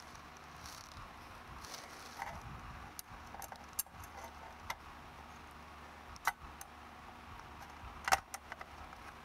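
Light metallic clicks and clinks from aluminum channel and small screws being handled and set against a plastic robot chassis. The clicks are scattered and separate, and the loudest comes about eight seconds in.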